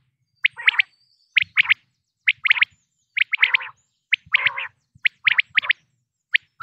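Quail calling: short groups of two or three quick, sharp notes, repeated about once a second.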